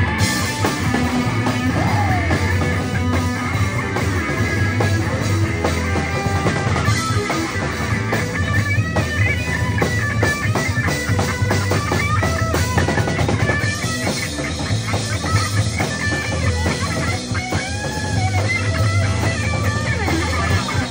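A live rock band playing loud: distorted electric guitar, bass guitar and drum kit, with bending guitar notes through the middle and later part.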